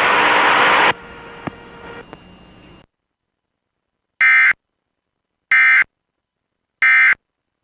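Three short Emergency Alert System end-of-message data bursts, the screechy digital SAME tones, about a second and a bit apart, signalling that the alert has ended. Before them a loud burst of radio hiss cuts off about a second in, and fainter hiss fades out.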